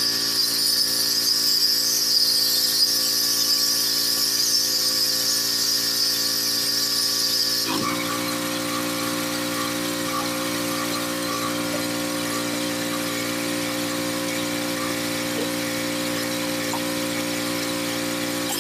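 Pressure washer running with a steady hum, and the high hiss of its wand's water jet spraying for about the first eight seconds. The hiss then stops while the machine keeps running.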